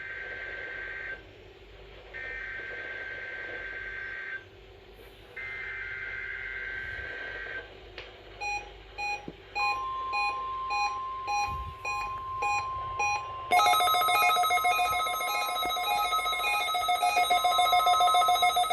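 NOAA Weather Radio SAME header: three bursts of two-tone digital data screech, each about two seconds long with short gaps. Then weather alert radios begin beeping about twice a second, and the steady warning alarm tone of the weekly test starts. About thirteen seconds in, a louder beeping alarm with several tones joins in.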